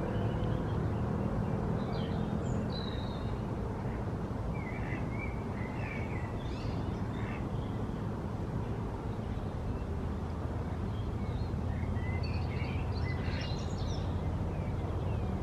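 Scattered bird calls, short chirps and squawks coming in little bursts a couple of seconds in, around six seconds and again near the end, over a steady low rumble.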